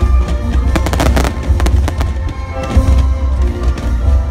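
Fireworks going off in quick sharp bangs and crackles, with a dense rapid rattle about a second in, over loud show music with heavy bass.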